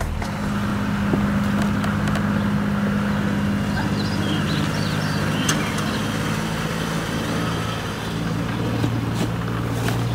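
Steady motor or engine hum that drops a little in pitch about eight seconds in, with a few faint high chirps around the middle.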